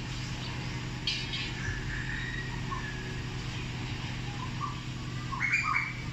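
Birds chirping and calling in short bursts over a steady low hum. The loudest pair of calls comes near the end.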